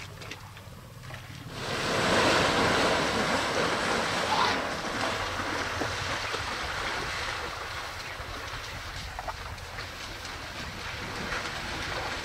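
A herd of African elephants wading and splashing through a shallow waterhole: a rushing, sloshing water noise that starts suddenly about a second and a half in and is loudest at first, then settles to a steadier splashing.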